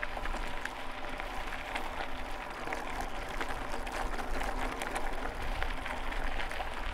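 E-mountain bike's tyres crunching and crackling over a gravel track, with the steady hum of its Yamaha PW-SE mid-drive motor underneath.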